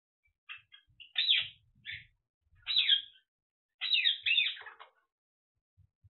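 African grey parrot giving a series of about five short calls, loudest around three and four seconds in, the last one a double call that bends in pitch.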